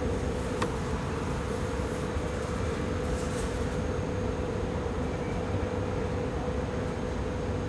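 Steady whirring of a small electric motor with a constant hum.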